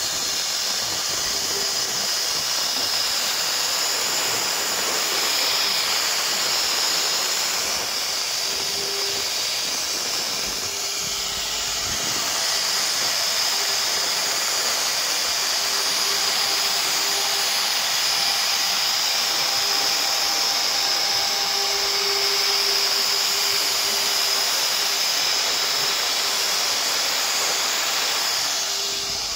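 CNC router spindle running at speed while its small carving bit cuts into a wood panel: a steady high whine over a continuous hiss.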